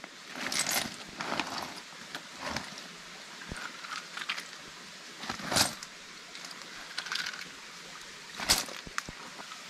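Freshwater snail shells clicking and clattering as handfuls are scooped off a stream rock and dropped into a plastic bag, with the bag crinkling. There are several separate bursts, the loudest about halfway through and near the end, over a faint trickle of the stream.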